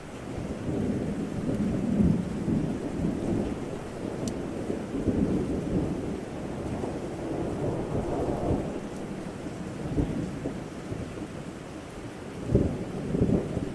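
Thunder rumbling in long, rolling swells over steady rain, with sharper claps about two seconds in and near the end.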